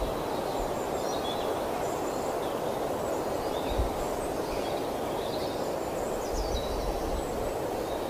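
Steady outdoor ambient noise with faint, high wild bird chirps and twitters scattered throughout, several calls overlapping in quick short notes.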